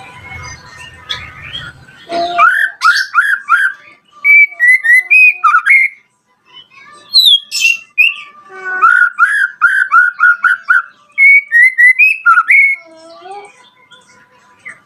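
White-rumped shama (murai batu) singing, starting about two seconds in: runs of fast repeated sweeping notes mixed with clear whistles, with a brief pause about six seconds in.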